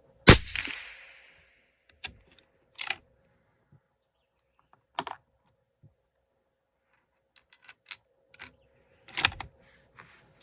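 A single suppressed shot from a 7mm Remington Magnum bolt-action rifle (Browning A-Bolt II with a titanium Otter Creek Labs Hydrogen-L suppressor), a sharp report with a tail that fades over about a second. Then a string of metallic clicks and clunks as the bolt is worked, the loudest clunk near the end.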